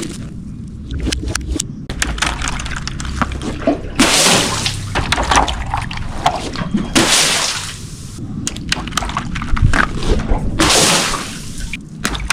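Liquid sloshing and splashing in several noisy surges, with many small crackles and clicks between them.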